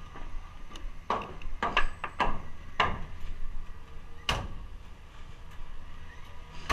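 Irregular knocks and clunks on a stepladder and wooden wall framing as a worker moves about and climbs. There are about eight of them, and the loudest comes about four seconds in.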